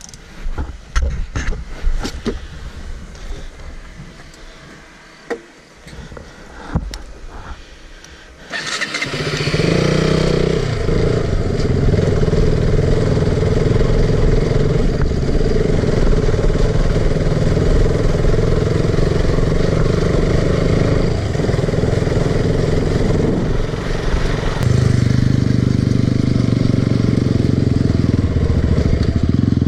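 A few seconds of scattered knocks and handling noise, then about eight seconds in a vehicle engine starts and runs steadily at a loud, even level. Its note shifts once near the end.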